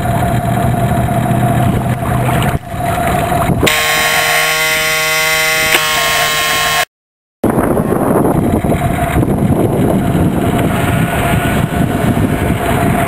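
Radio-controlled model boat's motor running steadily, a thin even whine over a loud hiss of wind and water. For about two seconds the sound switches to several steady high tones as picked up by the camera on board the boat. It then drops out completely for half a second at a cut.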